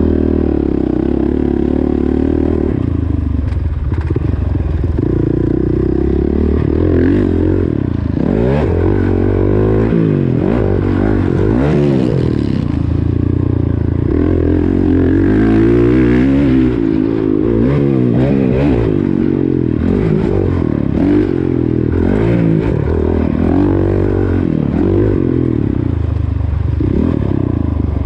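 Motocross bike engine being ridden hard, its pitch climbing and dropping over and over as the throttle is opened and shut.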